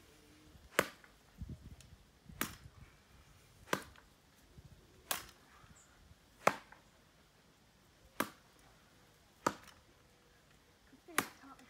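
Plastic swingball bats hitting a tethered ball back and forth: eight sharp hollow smacks, one about every second and a half, as the rally goes on.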